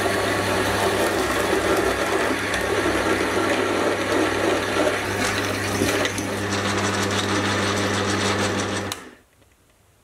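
Metal lathe running while a 25 mm reduced-shank Deming drill bit in the tailstock chuck drills through 1020 steel. A steady motor hum sits under a dense cutting noise, and both stop suddenly about nine seconds in.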